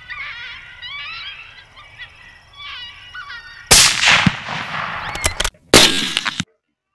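Canine yips and wavering howls, then a loud rifle shot about three and a half seconds in that rings on. A second loud shot comes near the end, and the sound cuts off sharply.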